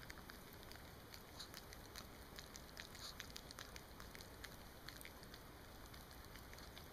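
Small dog licking and smacking its mouth on sticky peanut butter: faint, irregular wet clicks of tongue and lips.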